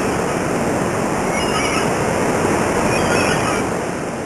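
Steady rushing noise like ocean surf, with a few faint high chirps in the middle, cutting off abruptly at the end.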